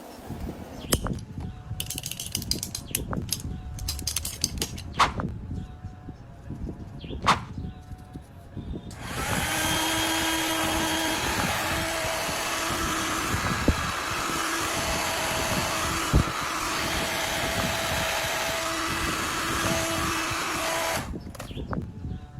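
Several seconds of scattered clicks and knocks, then an electric power tool switched on and running steadily for about twelve seconds before it stops.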